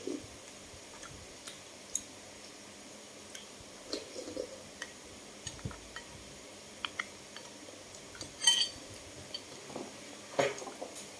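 Spoons tapping and scraping lightly against a ceramic bowl of porridge as someone eats, in scattered faint clicks with one louder clatter about two-thirds of the way in. Near the end a plastic bag rustles.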